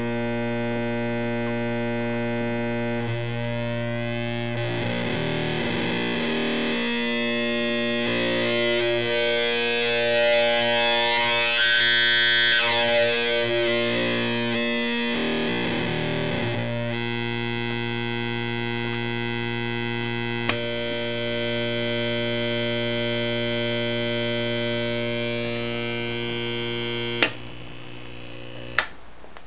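Buzzy square-like tone from a homemade 4093-based VCO run through a simple TL071 op-amp voltage-controlled filter, heard from a speaker: a steady low drone whose overtones shift and sweep up and back down in the middle as the filter is adjusted. About 27 seconds in a loud click cuts the tone down, followed by another click.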